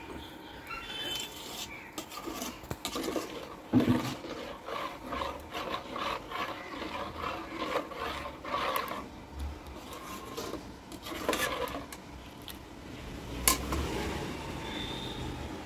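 Perforated metal ladle stirring fish curry in a metal pot, rasping and scraping against the pot's sides and bottom in a run of strokes. Two louder knocks of metal on metal come about 4 and 13 seconds in.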